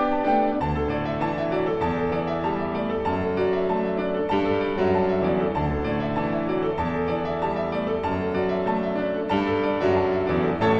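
Background piano music, gentle and melodic with notes changing about every half second.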